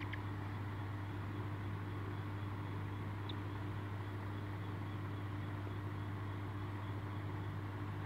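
A steady low room hum with a soft hiss and no change in level. It has two faint, very short high chirps, one at the very start and one about three seconds in.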